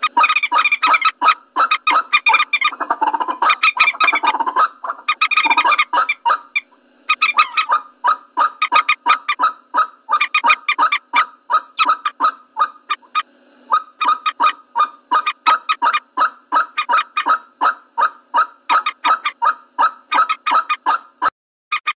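Common moorhen calls from a lure-call recording: short pitched notes repeated about four a second in long runs, with two brief pauses.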